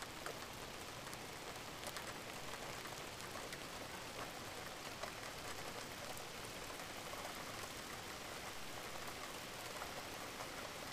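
Steady rain: an even hiss with scattered ticks of single drops.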